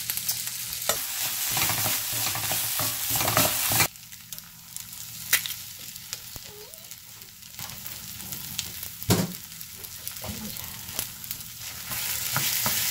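Crisp crackling and crunching as a cat bites at a head of cabbage in a plastic bag. The noise drops off suddenly about four seconds in, leaving a quieter stretch with a few sharp taps, and the crackling picks up again near the end.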